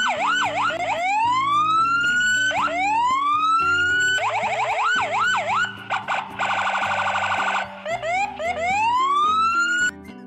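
Police car siren cycling through its patterns: long rising wails, quick up-and-down yelps, and a fast warble in the middle. It cuts off suddenly shortly before the end.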